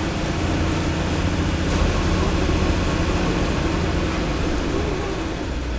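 Hydraulic waste compactor running: a steady, loud low drone with a noisy wash over it.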